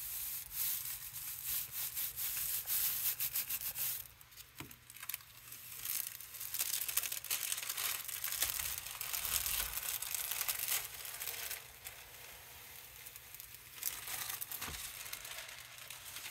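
Thin white tissue paper rubbed by hand against a gel printing plate, a dense scratchy rustle, then the tissue crinkling as it is peeled off the plate from about six seconds in, growing quieter near the end.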